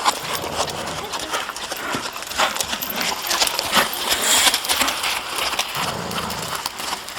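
Hoofbeats of Rocky Mountain Horses being ridden: a stream of uneven hoof strikes.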